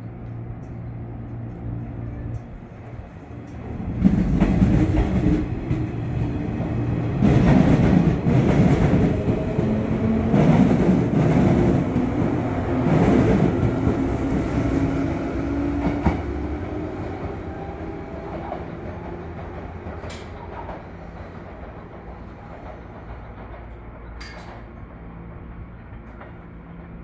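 Shinano Railway 115 series electric train standing with a steady hum, then about four seconds in pulling out and accelerating past, its motors whining up in pitch and its wheels clicking over rail joints. It is loudest for about twelve seconds, then fades steadily as the train draws away.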